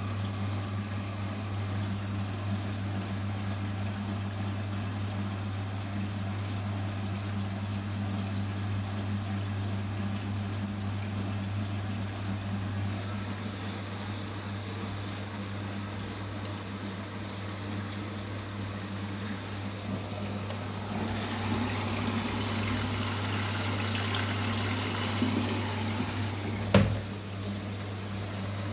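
Vestel CMI 97302 washing machine with a steady low hum, joined about three-quarters of the way through by water rushing in as it fills, and one sharp click near the end.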